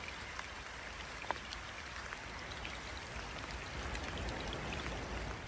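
Steady rain falling, an even hiss with scattered single drops ticking close by.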